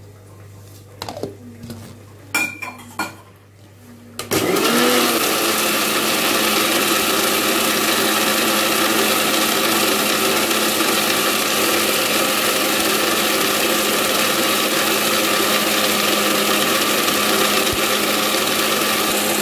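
Electric mixer-grinder (mixie) with a small steel jar grinding wet masala to a fine paste. A few clicks and knocks come first as the jar and lid are handled, then about four seconds in the motor starts with a brief rising whine and runs loud and steady.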